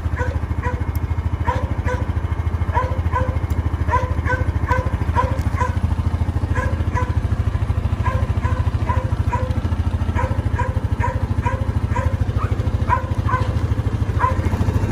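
A Honda four-wheeler's engine idles steadily in neutral while a dog barks over it in short, repeated yaps, about two or three a second.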